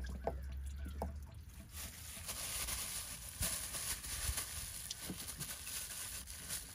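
Thin plastic bag stuffed with paper towels crinkling as it is handled, a run of small crackles and rustles.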